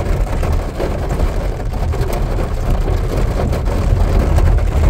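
Sedan driving in heavy rain: a steady low rumble of engine and tyres on wet road, with rain noise on the car.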